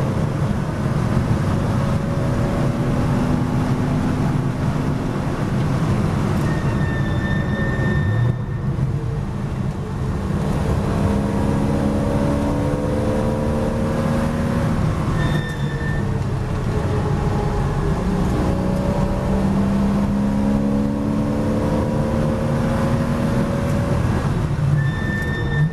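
Porsche Boxster S race car's flat-six engine heard from inside the cabin, pulling with its pitch rising slowly, then dropping away three times as the driver lifts and slows. A short high-pitched tone sounds at each of those moments.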